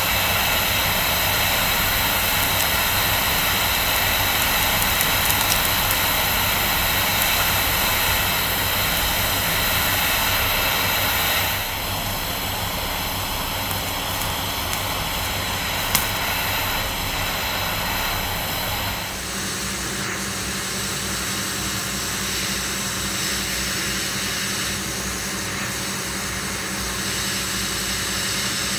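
Oxygen-propane torch flame hissing steadily against a rusty iron railway spike as it heats it. The sound drops a step about a third of the way in and shifts again about two-thirds in, with a single sharp click about halfway.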